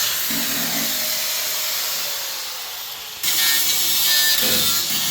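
Power tool cutting steadily, with a loud hissing rasp that gets louder about three seconds in.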